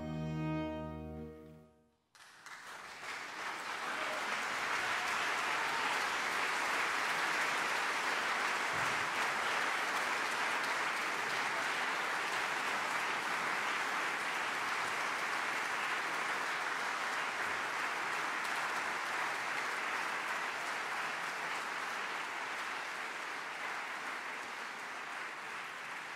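A string orchestra's last held chord ends about two seconds in. A concert audience then applauds steadily, the clapping tailing off near the end.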